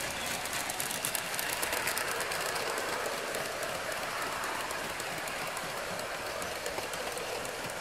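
Märklin gauge 1 (1:32) model freight wagons rolling past on metal track: a steady rolling rattle of the wheels with rapid clicking as they run over the rail joints.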